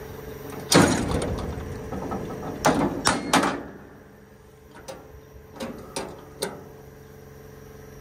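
Compressed-air blow gun fired in short bursts: one stronger blast about a second in, three quick ones around three seconds, then a few fainter puffs, over a steady low hum.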